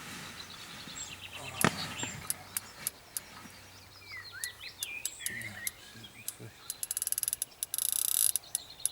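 Fishing reel clicking in quick runs while a hooked tench is played and line is given, ending in a fast buzz of clicks about eight seconds in. Small birds chirp in between.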